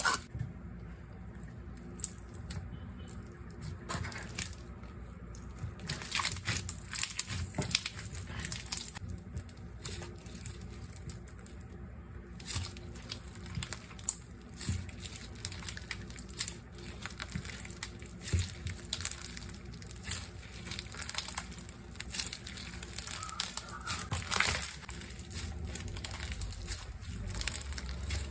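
Hands squeezing and stretching slime, with irregular crackling and popping as air pockets burst.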